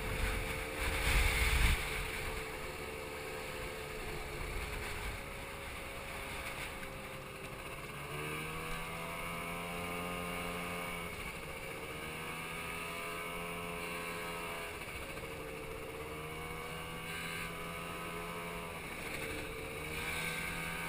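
Scooter engine running while riding along, its pitch rising and dipping several times with the throttle. There is a burst of wind rumble on the microphone in the first couple of seconds.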